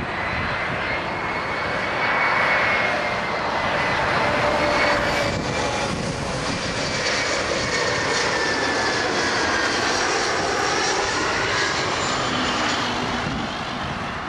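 Airliner passing low overhead, its engines making a loud, steady rushing roar with a whine that falls in pitch as it goes by.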